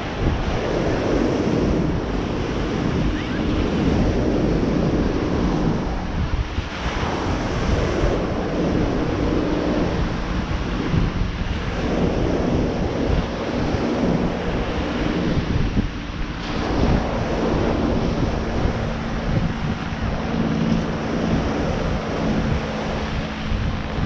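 Wind buffeting the camera microphone over the wash of surf breaking on a sandy beach. A faint steady low drone runs underneath for much of it.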